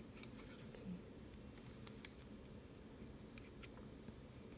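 Faint, sparse clicks of wooden double-pointed knitting needles tapping against each other as stitches are knitted, over a low steady room hum.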